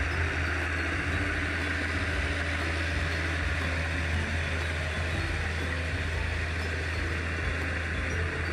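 Ford 8010 tractor's diesel engine running steadily with a deep, even drone while it tills the flooded paddy field.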